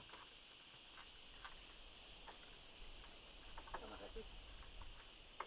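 Steady high-pitched chorus of insects, with a few faint taps and knocks scattered through it.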